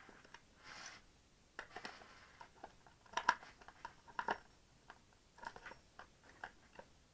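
Scattered clicks, taps and short scrapes of a screwdriver and hand tools working on an e-bike battery's thin metal case during teardown, with two louder clacks a little after three and four seconds in.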